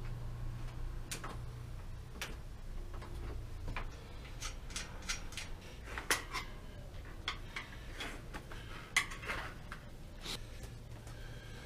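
Scattered light clicks and knocks as a bicycle wheel is handled and its tyre and inner tube are worked off the rim by hand. Most of the clicks come in the second half.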